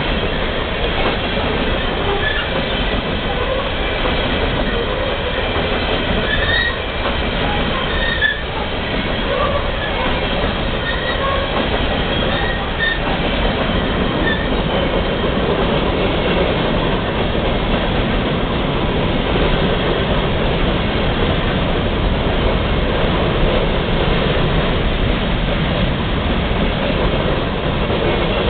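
Freight train of hopper cars rolling steadily past: continuous noise of steel wheels on the rails, with short high wheel squeals here and there in the first half.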